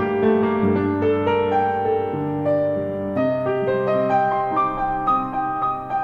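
A C. Bechstein Academy B-120 Select upright piano playing a popular tune: a melody of single notes moving over held bass notes, the bass shifting to a new note about three seconds in.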